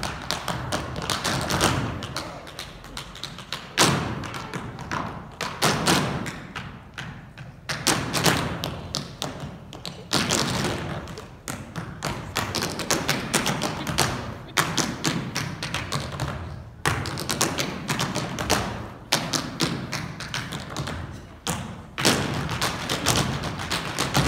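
A group of dancers' feet stamping and tapping on a wooden stage in unison, percussive dance with fast runs of strikes broken by brief pauses.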